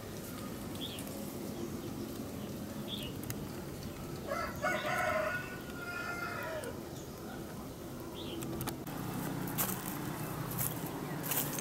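A rooster crowing once, about two seconds long, midway through, its call dropping in pitch at the end. A few faint short high chirps sound before and after it, and a few sharp clicks come near the end.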